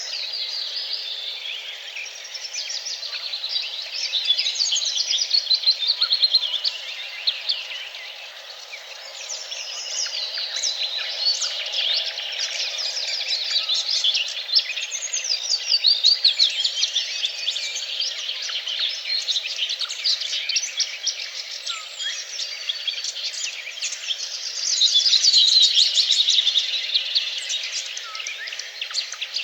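Several songbirds singing at once, a continuous chorus of fast trills and chirps that overlap without pause, over a faint steady background hum.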